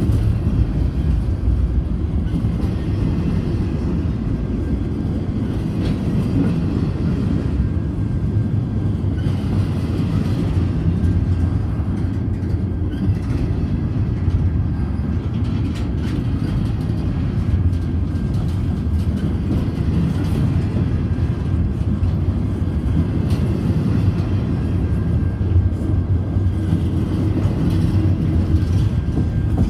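Double-stack intermodal well cars rolling past close by: a steady low rumble of steel wheels on the rails, with a few faint clicks.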